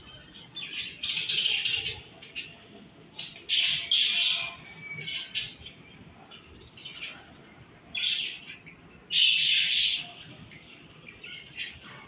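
Budgerigars chirping and chattering in raspy bursts of about a second, several times over, with quieter chatter in between.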